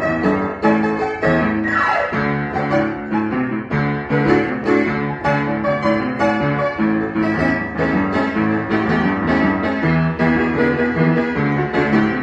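Upright acoustic piano played with both hands in continuous chords and melody, with a quick downward run across the keys about two seconds in.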